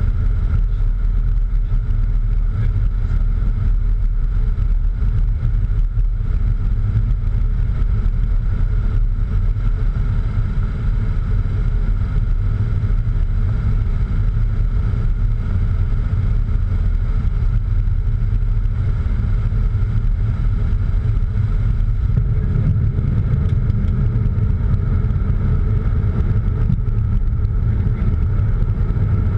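Steady in-flight cockpit noise of a Cessna Citation X business jet: a constant low rumble with a faint steady whine above it.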